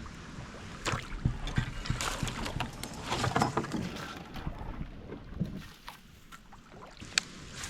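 Kayak paddle dipping and splashing in the water in irregular strokes, easing off in the last couple of seconds, with one sharp tap near the end.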